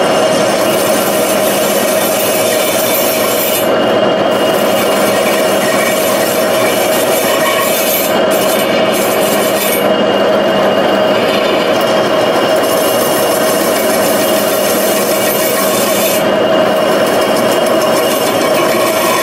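Old metal lathe running with an aluminium alloy wheel spinning in it while a hand-held radius steel scrapes its face: a steady rasping scrape over the machine's steady hum.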